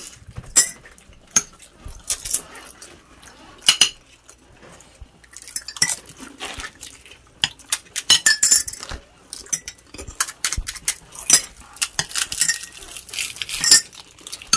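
Metal spoons clinking against ceramic plates and glass bowls, in short irregular clinks, as potato filling is scooped into fuchka (pani puri) shells.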